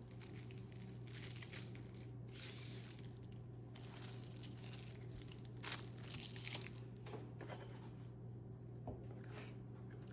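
Takeout food packaging being torn open and crinkled in irregular rustling bursts, over a steady low hum.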